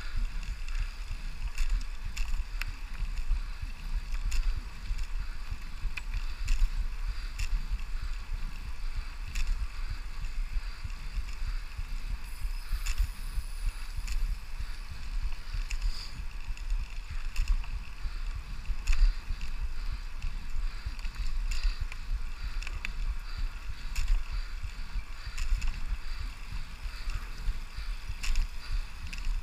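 Brompton folding bicycle riding along a cracked asphalt path, with irregular clicks and rattles from the bike over a steady hiss of tyres. Wind buffets the microphone with a constant low rumble.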